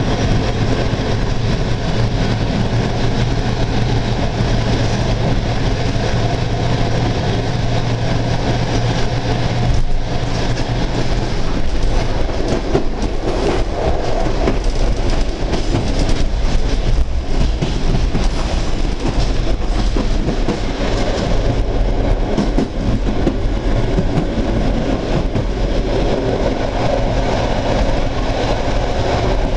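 Passenger train pulling away, heard from the rear end of the train: continuous running noise with its wheels clattering over rail joints and points, the clatter thickest around the middle.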